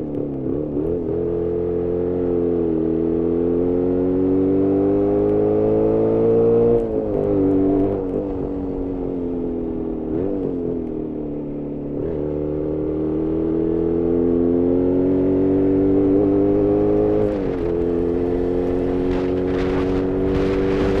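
Two-stroke twin engine of a Jawa 350 type 638 motorcycle under way, heard from the bike itself. Its note climbs steadily as it pulls, drops sharply about seven seconds in and sinks for a few seconds, then climbs again and drops sharply again near the end, with a few sharp knocks in the last seconds. It is running lean and short of power, as the owner notes.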